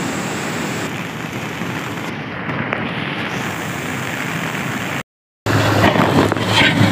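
Roar of brown floodwater pouring in a torrent over a breaching dam embankment, a dense steady rushing noise. It cuts off briefly about five seconds in, then a louder rush of water follows with a low steady hum beneath it.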